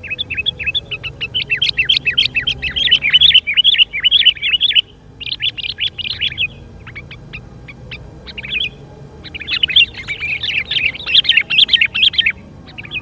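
Sooty-headed bulbuls (kutilang) giving rapid, chattering calls in bursts of a few seconds, with a sparser run of single notes in the middle.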